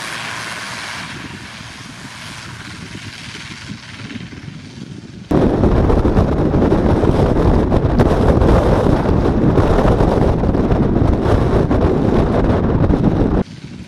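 ATR 72-600's twin Pratt & Whitney PW127 turboprop engines and propellers running as the aircraft taxis, slowly fading. About five seconds in, this gives way suddenly to loud, rumbling wind buffeting on the microphone, which stops abruptly near the end.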